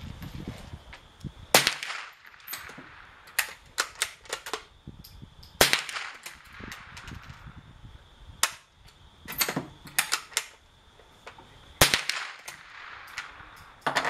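.22 rimfire gunshots, about a dozen at irregular intervals, some in quick strings of three or four about a third of a second apart.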